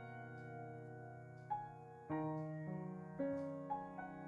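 Soft background piano music: slow notes and chords, each struck and left to ring as the next one comes in.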